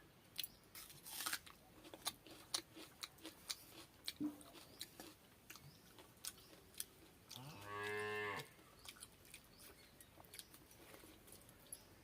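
Close eating sounds of pakhala and fried fish being eaten by hand: wet mouth clicks and chewing throughout. About seven and a half seconds in, a cow moos once for about a second, the loudest sound here.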